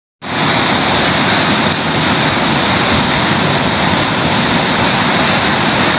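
Muddy floodwater rushing fast in a flooded street, a loud, steady noise of churning water.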